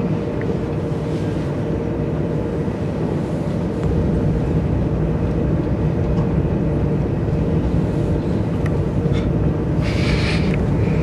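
Steady low rumble of a passenger train's interior while it travels, with a short burst of higher hiss near the end.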